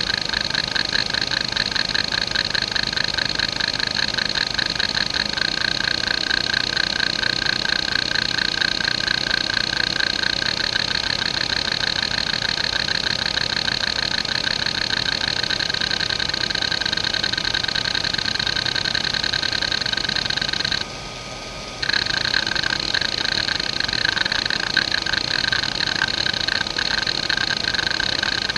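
JVC JDE2042M10-1, a single-platter 2.5-inch 40MB IDE hard drive from 1992, seeking nonstop under the hdmotion test: its head actuator makes a fast, continuous seek chatter. About two-thirds of the way through the seeking stops for roughly a second, then starts again.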